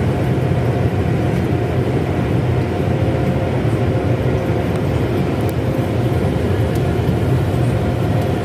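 Automatic tunnel car wash machinery running, heard from inside the car: a loud, steady rushing noise with a low rumble and a faint hum, unchanging throughout.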